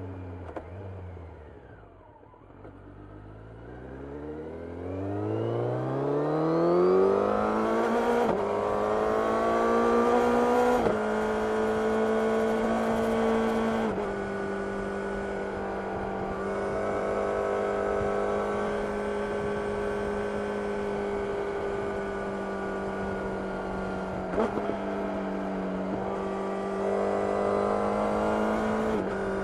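Kawasaki Ninja 1000SX's inline-four engine through a full Akrapovic header-and-silencer exhaust with the dB killer fitted, heard from the rider's seat. It drops in revs at first, then pulls up steadily for several seconds and settles into a steady high-rev note at cruising speed, broken by a few brief dips in the note.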